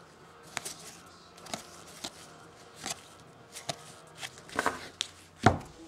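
Trading cards being slid and flipped by hand from one stack to another: light, irregular flicks of card stock, one or two a second, the sharpest one near the end.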